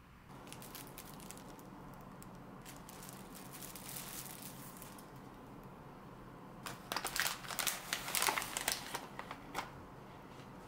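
Thin plastic shopping bag and the packet inside it crinkling as the packet is pulled out by hand. There is light crinkling in the first half and a louder, denser run of crinkling past the middle lasting about three seconds.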